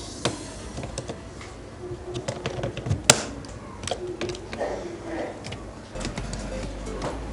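Small plastic clicks, taps and scrapes as a screwdriver pries a laptop speaker out of its plastic bottom case, with one sharp snap about three seconds in.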